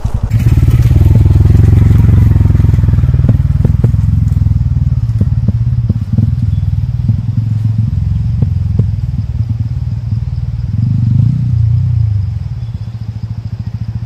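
TVS Ronin's single-cylinder engine running as the motorcycle rides over a rough track, picking up about half a second in, easing off around six seconds, pulling again around eleven and dropping back near twelve and a half. Scattered knocks and clatter from the bike jolting over the stones.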